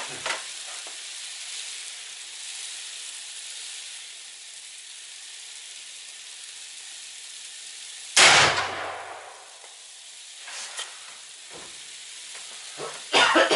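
A single shot from a Mossberg Patriot .308 Winchester bolt-action rifle about eight seconds in, loud and sharp with a short rumbling tail, over a steady hiss. A few smaller clicks and knocks follow near the end.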